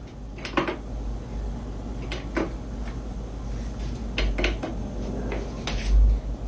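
A series of sharp knocks and clatters of hard household objects, about half a dozen spread out, some in quick pairs, over a low rumble, with a heavier low thump near the end.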